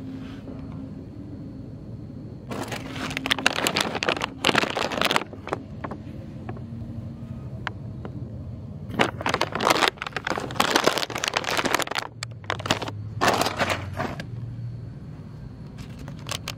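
Tent door zipper being pulled shut in several strokes of about a second each, with the nylon door flap rustling, over a steady low hum.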